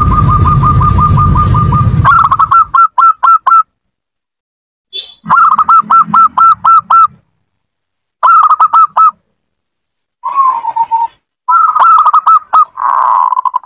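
Zebra dove (perkutut) cooing: quick runs of short staccato notes, in several bursts with pauses between them. A loud low rumble lies under the first couple of seconds, then stops.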